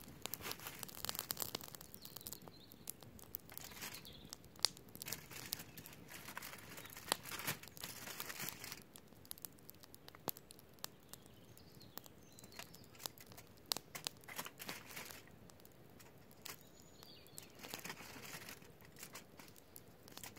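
Crinkly food wrapping being handled: bursts of crinkling and tearing with sharp clicks in between, coming in clusters every few seconds with quieter gaps.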